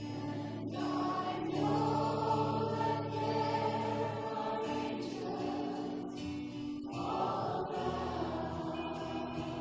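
Worship music: a group of voices singing a slow song over sustained accompaniment, with a new sung phrase starting about a second in and another about seven seconds in.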